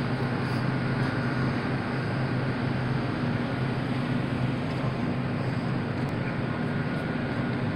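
Steady low hum and hiss of supermarket ambience: refrigerated display cases and ventilation running, with a faint steady high whine above it.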